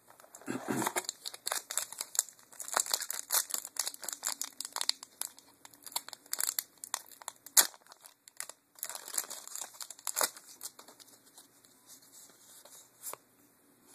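A Magic: The Gathering booster pack wrapper crinkles and crackles as it is pulled from the box and torn open, a dense run of crackling for most of the first ten seconds. After that come only a few soft ticks as the cards are handled.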